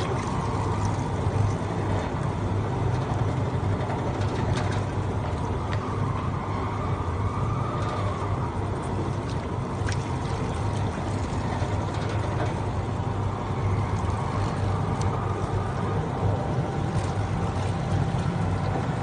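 Electric fish-and-meat bone separator machine running: a steady motor hum with a few faint clicks.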